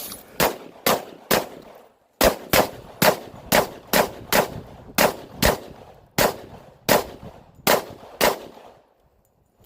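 Rapid semi-automatic fire from a 10mm handgun: about sixteen shots at roughly two a second, with a short break about two seconds in.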